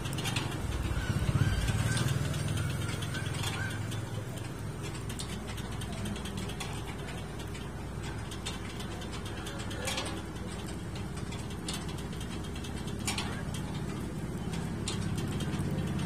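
Chain-driven rotisserie turning a spit over a charcoal grill: the drive runs with a steady low hum and scattered mechanical clicks and ticks.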